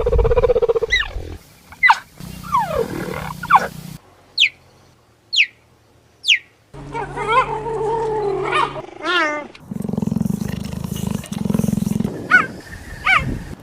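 Cheetah calls spliced from several recordings: short high chirps that sweep sharply down in pitch, about one a second, and longer wavering calls, some over a low rumble. The recording changes abruptly every few seconds.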